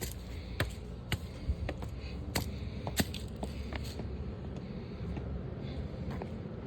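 Footsteps of people walking, sharp steps about twice a second for the first few seconds, then sparser, over a steady low rumble.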